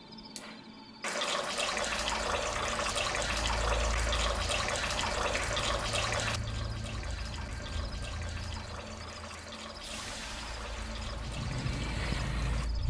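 Water running from a bathroom tap into a sink, starting suddenly about a second in after a faint click. The flow drops in level around halfway and rises again near the end.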